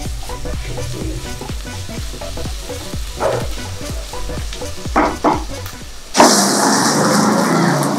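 Sliced onions frying in oil in a kadai, a silicone spatula stirring and scraping them in a few strokes. About six seconds in, a much louder sizzling hiss sets in and holds.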